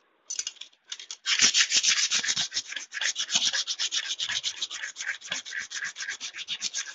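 Blade of an old, rusty, dull pair of large scissors rubbed rapidly back and forth on a wet flat slab to sharpen it. There are a few strokes at first, then steady fast rubbing of several strokes a second from about a second in.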